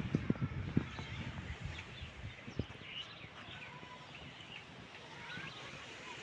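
Several birds chirping and whistling in short calls over a steady outdoor hiss, with a few low thumps during the first three seconds.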